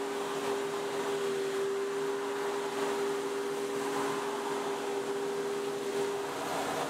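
Boschung S2 Urban Sweeper, a diesel street sweeper, running steadily: a held hum over an even rushing noise. One of the hum tones fades out a little past six seconds in.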